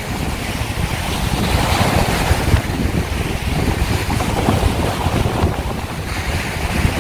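Strong wind buffeting the microphone, with sea waves breaking on a sandy shore.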